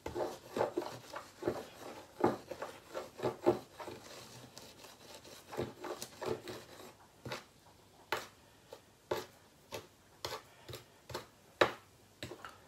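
Dry flour being stirred in a plastic basin by hand and with a metal spoon: soft rubbing and scraping with irregular sharp taps, busier in the first few seconds and sparser after.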